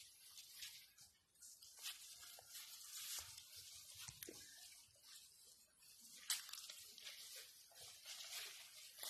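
Faint rustling hiss, close to silence, with a single sharp tap about six seconds in.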